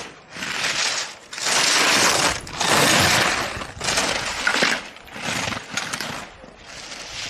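Slalom skis' edges scraping and carving on hard-packed snow through quick turns: about six hissing scrapes, roughly one a second, loudest around two to three seconds in.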